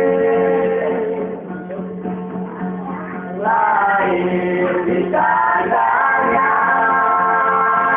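Singing with musical accompaniment: a long held note fades into a softer passage, then the voices come back in a little past the middle with moving pitches and settle on held notes.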